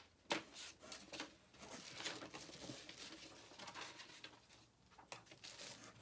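Faint rustling, crinkling and light taps of packaging being handled as items are sorted in a cardboard box, with a sharper click about a third of a second in.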